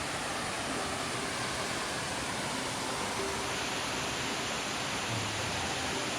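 Waterfall water pouring and splashing over rocks, a constant, even rushing hiss.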